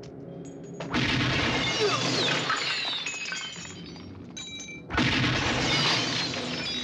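Film-soundtrack action effects: two long, loud stretches of glass shattering and debris breaking amid automatic gunfire, the first starting about a second in and the second about five seconds in, over a background music score.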